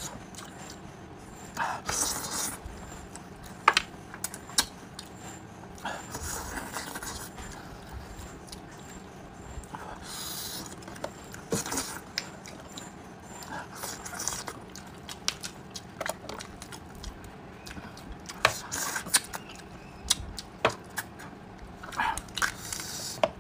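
Close-up eating sounds of a braised sheep's head being pulled apart by hand and eaten: wet tearing of meat and skin, chewing and lip smacks, with scattered sharp clicks.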